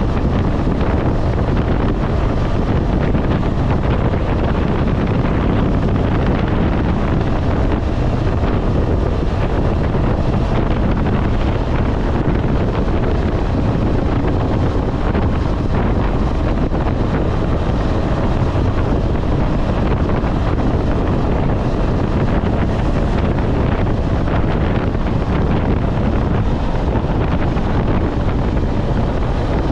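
Steady, loud wind noise on the microphone of a KTM 250 Adventure motorcycle ridden at highway speed, with the bike's single-cylinder engine running underneath it.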